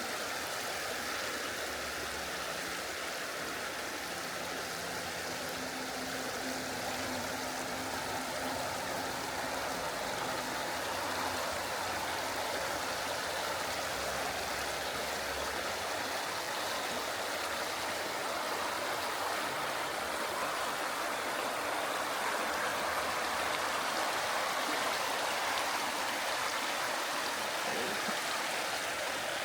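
Mountain stream flowing over rocks: a steady rush of moving water.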